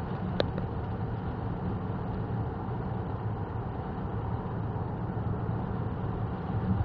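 Heavy rain on a moving car and tyres on a soaked motorway, heard inside the cabin as a steady noise with a low rumble underneath. A single sharp click about half a second in.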